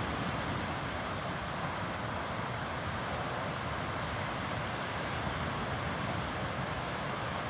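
Ocean surf breaking and washing on a beach: a steady rush of noise, with wind buffeting the microphone.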